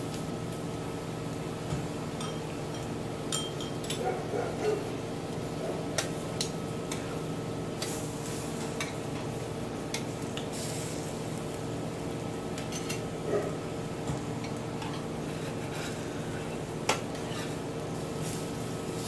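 Chopsticks and metal tongs tapping and scraping against a round tabletop grill pan as grilling vegetables are turned: a dozen or so short, scattered clicks over a steady hum.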